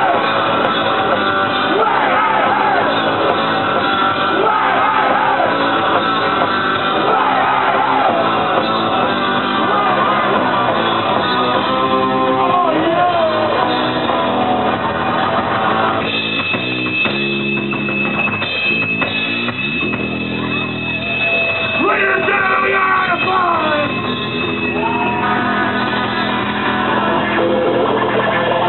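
Punk rock band playing live: distorted electric guitars with sung and shouted vocals over the first part. A steady high tone rings through the band for several seconds in the second half.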